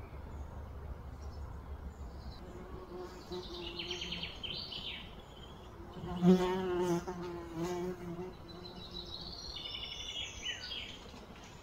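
A flying insect buzzing, loudest and wavering for a moment about halfway through. Short high bird chirps and trills sound around it.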